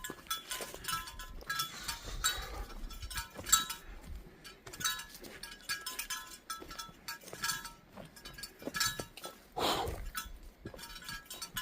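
Metal jingling in time with walking steps: a short ring of the same few steady pitches about every three-quarters of a second, with a louder rustle about ten seconds in.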